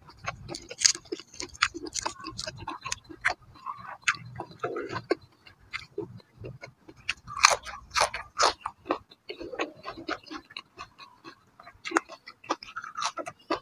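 Close-up eating sounds: crunchy chewing of fresh herb leaves and vegetables, with many short crisp snaps and crackles as herb sprigs are torn apart by hand.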